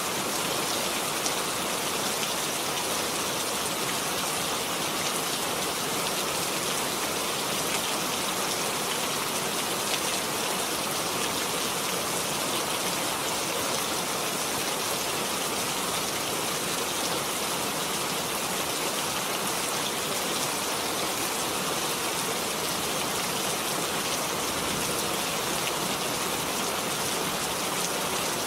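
Steady rain falling and hitting surfaces: an even, unbroken hiss of many drops with no changes in strength.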